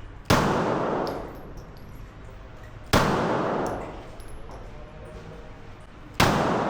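Three handgun shots, about three seconds apart, each with an echoing tail that dies away over about a second.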